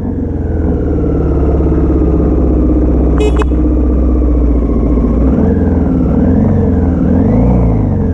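Motorcycle engine running steadily at low revs, then revved up and down several times over the last three seconds. A single sharp metallic clink about three seconds in.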